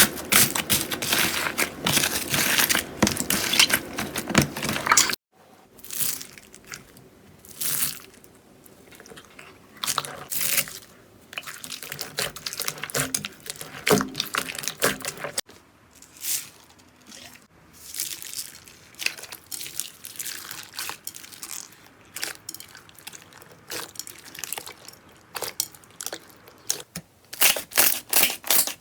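Slime worked by hand, crackling and crunching. There is a dense run of crackles at first, then after a sudden cut about five seconds in, sparser separate pops and crackles.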